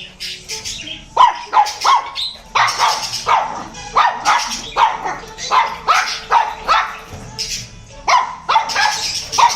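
Pet birds calling: a rapid run of shrill, harsh chirps, several a second, with a short lull a little after halfway.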